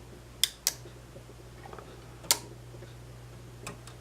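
Sharp metal clicks and taps of tools against the amplifier's parts as resistors are positioned for soldering to a copper bus bar: two close together about half a second in, a louder one just past two seconds, and a couple of faint ones near the end, over a steady low hum.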